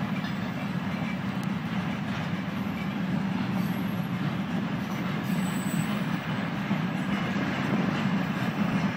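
Freight train of loaded flatcars rolling past: a steady noise of steel wheels running on the rails.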